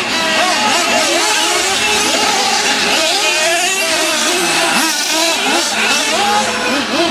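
Several nitro-powered RC monster trucks' small glow-plug engines screaming and revving up and down together, their pitches rising and falling as the trucks accelerate and back off around the track.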